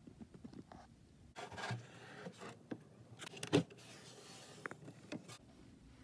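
Handling sounds as a plywood flip-up wall desk is folded down: faint rubbing and scraping of wood, a few light clicks, and one louder knock about three and a half seconds in.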